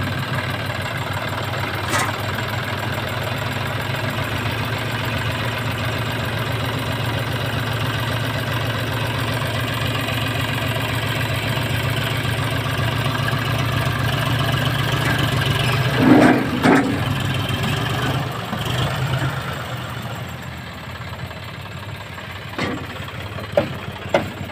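Tractor diesel engine running steadily, with a brief louder burst about two-thirds of the way through and a slightly quieter engine over the last few seconds.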